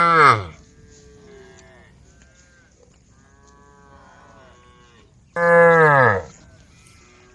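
Cows mooing: a loud moo tails off just after the start and another loud moo comes about five seconds in, each falling in pitch, with fainter moos from other cows in between.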